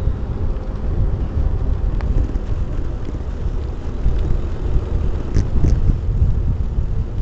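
Wind buffeting a small action camera's microphone on a moving mountain bike: a loud, uneven low rumble. Two faint short high sounds come about five seconds in.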